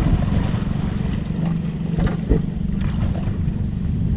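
Small boat's engine running steadily: a continuous low, pulsing rumble.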